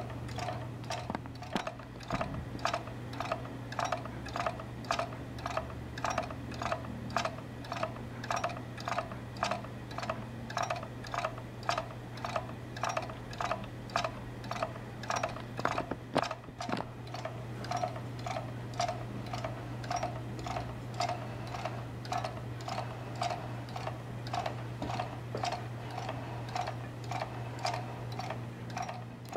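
A wooden spoked wheel fitted with magnets turning beside a lever arm in a wooden frame, the mechanism clicking in an even, steady rhythm. Each click has a short ringing tone, and a steady low hum lies underneath.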